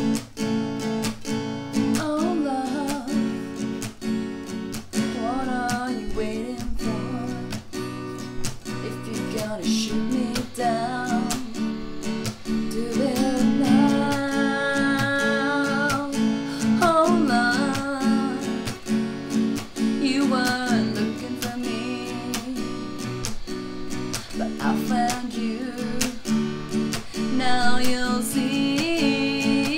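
Acoustic guitar strummed in a steady rhythm, with a voice singing a slow melody over it from about two seconds in.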